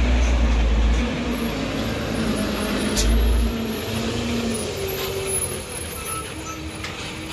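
Diesel engine of a Mitsubishi Canter light truck running as it passes close by and pulls away up the road, growing fainter in the last couple of seconds. There is a sharp click about three seconds in.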